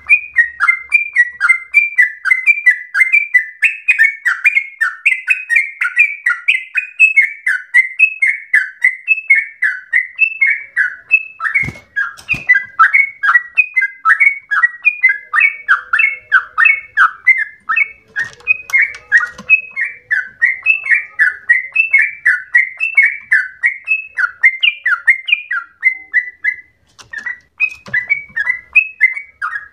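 Yellow-vented bulbul (trucukan) singing a long unbroken run of quick, bubbling whistled phrases, several notes a second, pausing only briefly near the end. Its song is likened to that of the straw-headed bulbul.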